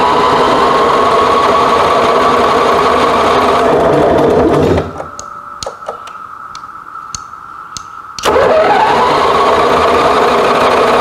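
Generac RV generator engine running loud with no muffler, coming up to speed at the start. It cuts out about five seconds in, a few clicks follow, and about eight seconds in it fires again and rises quickly to a steady run.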